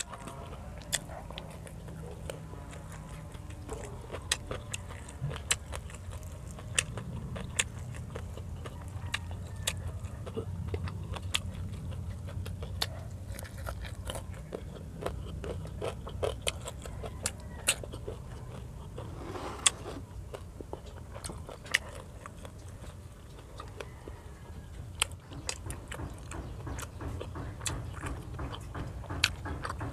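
Close-miked eating: chewing fried fish and rice, with frequent sharp crunches and wet mouth clicks, over a steady low hum.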